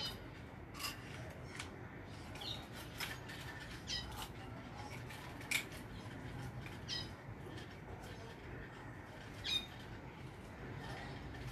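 Small birds chirping in short calls every second or two, with a few light clicks in between over a steady low background hum.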